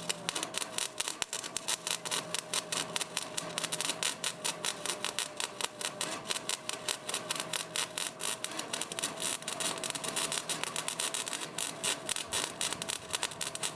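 Lincoln Weld-Pak 100 wire-feed welder laying a bead: a fast, irregular crackle of the arc, with a faint steady whine under it.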